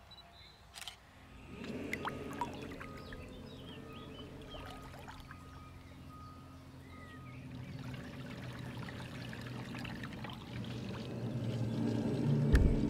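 Radio-controlled bait boat's electric motors running with a steady hum, water churning and rushing around the hull. It starts about a second and a half in and grows louder toward the end, with a low bump near the end.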